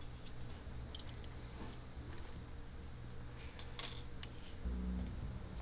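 Small metal turntable arm parts handled and adjusted by hand, giving faint scattered clicks. There is one sharper metallic clink with a brief ring just under four seconds in, and a low thump about a second later.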